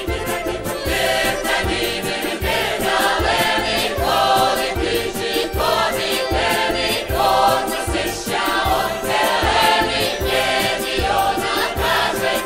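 A song with several voices singing together over a steady beat.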